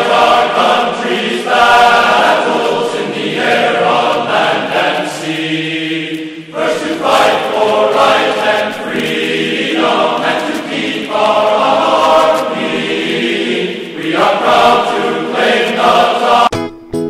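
Background choral music: a group of voices singing long held phrases, which stop abruptly near the end.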